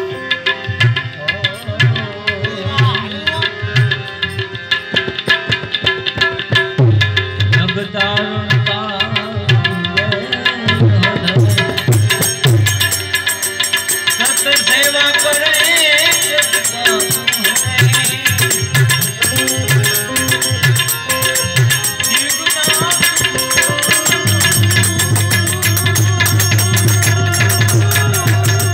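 Harmonium playing a melody over held notes, with a hand drum beating a steady rhythm that grows denser near the end.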